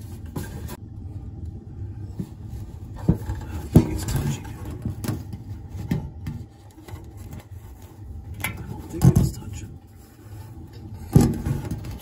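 Scattered knocks and scrapes of hands and metal inside a gas furnace's burner compartment, the loudest about 4, 9 and 11 seconds in, over a low steady rumble.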